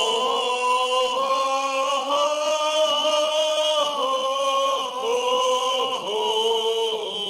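Background music: slow, chant-like singing in long held notes that shift in pitch every second or two.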